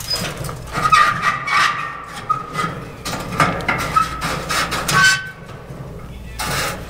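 Steel axle rod scraping and clinking against a steel barbecue-stand frame as it is worked through the mounting bracket, with short metallic rings among irregular knocks and a longer scrape near the end.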